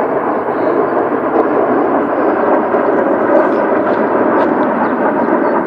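Jet engines of a formation of four military jets flying over, a loud, steady rumble.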